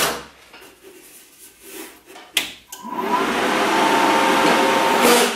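Yes Welder MIG-250 Pro inverter welder switched on with a click about two and a half seconds in, then its cooling fan spins up and runs steadily with a faint whine.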